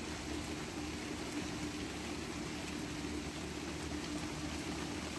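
Steady rain falling, an even hiss, with a low steady hum underneath.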